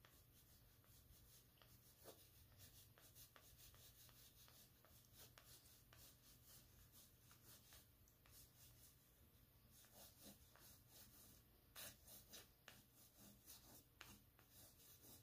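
Faint scratchy strokes of an oil pastel drawn side to side across paper, one short line after another in quick runs.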